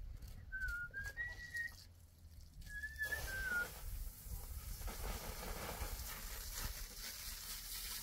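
Two short whistled phrases, each about a second long and stepping up and down in pitch. From about three seconds in, water from a garden hose runs and splashes onto a concrete floor as a steady hiss.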